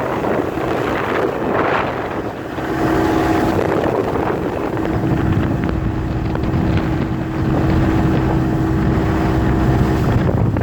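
Motorboat engine running, with wind buffeting the microphone; a steady whine joins in about three seconds in and holds until near the end.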